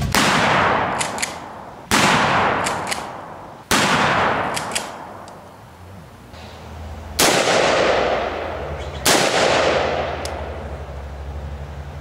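Five loud gunshots, each followed by a long fading echo: three about two seconds apart, then a pause, then two more. There are a few faint high clicks between shots and a steady low rumble underneath.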